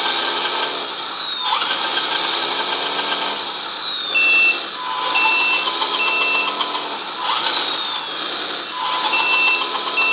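Sound module of an RC mining dump truck playing a diesel engine note that rises and falls about every three and a half seconds as the truck is driven forward and back, with reversing beeps sounding twice in runs of three. A whine that falls in pitch runs alongside from the big geared axles and drive motor.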